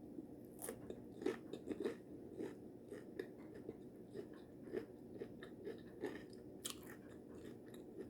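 Faint chewing and crunching of a mouthful of taco salad with tortilla chips, with small irregular mouth clicks about every half second.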